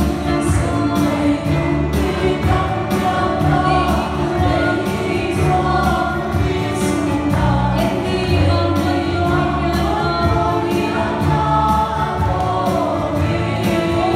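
A small mixed group of men and women singing a gospel worship song together into microphones, accompanied by a strummed acoustic guitar.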